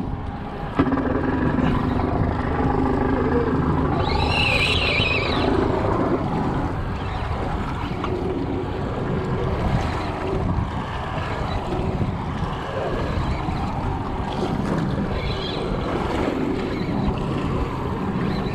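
Wind and sea noise around a small open boat, with a brief high-pitched squeal about four seconds in.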